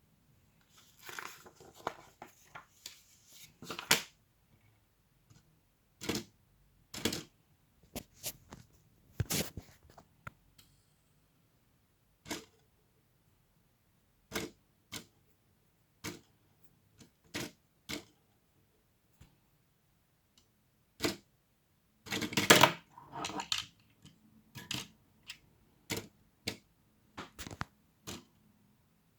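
Plastic LEGO pieces being handled and snapped together: irregular sharp clicks a second or two apart, with stretches of rustling rummaging about a second in and again about 22 s in.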